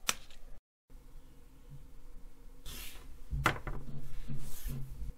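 Clicks, knocks and rustles of a small plastic power-supply case being handled as its mains transformer and circuit board are fitted back in: a sharp click at the start, then a sharper knock and clatter past the middle.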